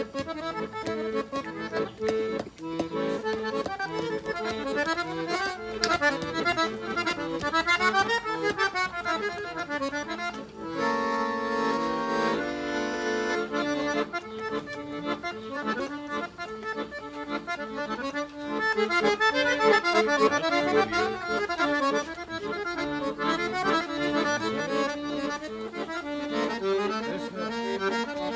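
Piano accordion playing a lively tune: quick melodic runs up and down over a steady repeating lower accompaniment. About eleven seconds in, it holds one sustained chord for about two seconds before the runs resume.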